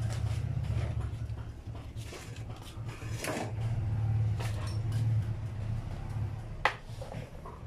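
A few sharp clicks and knocks of small hard objects being handled or set down, over a steady low hum. The sharpest knock comes near the end.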